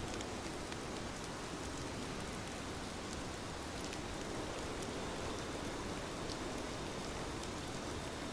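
Steady soft rainfall, an even hiss with scattered individual drops ticking.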